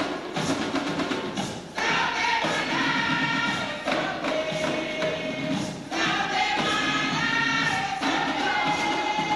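Garifuna music: hand drums beating under a group of voices singing together in phrases of about two seconds each, with the drum strokes clearest in the first two seconds.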